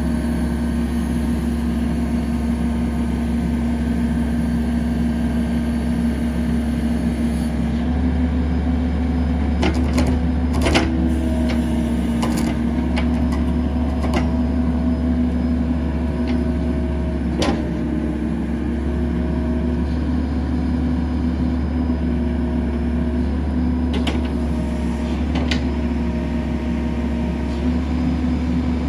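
CAT 308D mini excavator's diesel engine running steadily with a constant hum, with a few short clicks in the middle.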